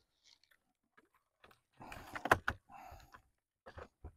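A toy RC car and its packaging being handled: a cluster of short clicks and knocks about two seconds in, a brief rustle, and a couple more clicks near the end.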